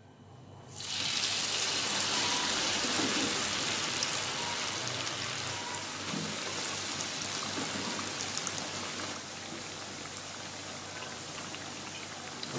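Cornstarch-coated potato sticks going into hot oil in a wok: the oil breaks into a loud sizzle about a second in and keeps frying steadily, easing a little near the end.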